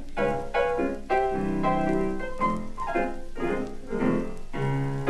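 Jazz background music: a piano playing a run of struck notes, one after another.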